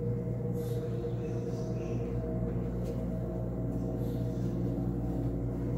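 Steady ambient music drone: several sustained low tones held over a deep hum.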